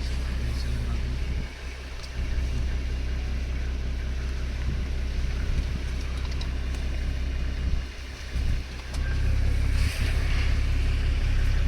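Safari vehicle's engine running, a steady low rumble that dips briefly twice.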